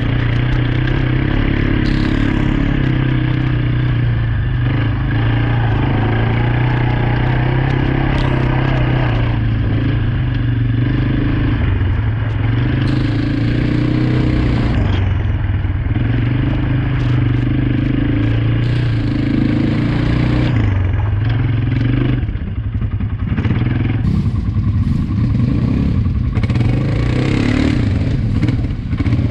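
ATV engine running continuously under way, its note wavering up and down with the throttle and dipping briefly about two-thirds of the way through, with light clatter and rattling from the machine.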